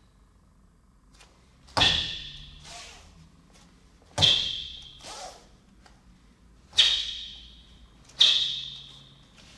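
Four sharp snaps of a taekwondo uniform (dobok) as techniques are thrown in an ITF pattern, one with a kick, each dying away over about a second in the hall's echo.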